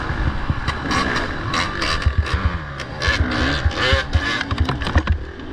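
Off-road motorcycle engine revving up and down, with frequent short knocks and rattles.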